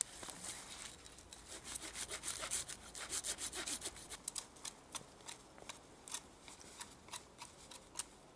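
Dry twigs and branches rustling, scraping and crackling in quick, irregular bursts as someone pushes through them.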